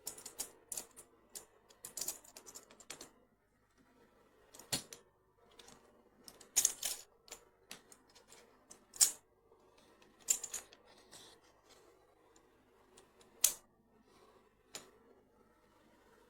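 Hollow plastic magnetic building cubes clicking and clacking against each other as they are handled and stacked, in irregular sharp clicks with a few louder clacks.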